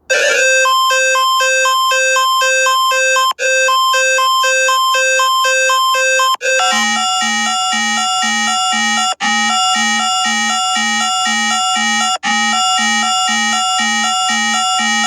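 Electronic emergency alert system (EAS) alarm tone pulsing about twice a second. A higher beeping pattern switches about six seconds in to a lower, buzzier pulsing tone, broken by a brief gap every three seconds or so.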